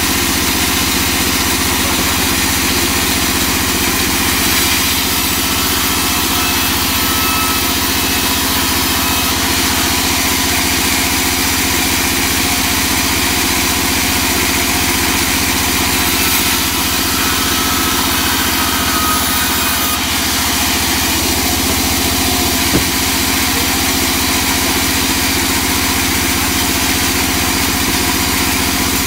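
Large vertical band saw running steadily, its blade sawing a teak plank, a constant loud machine drone with a hiss of the cut. One short sharp knock about two-thirds of the way through.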